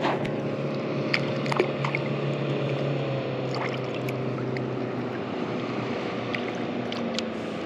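Water lapping and small drips and splashes at the surface, over a steady low hum.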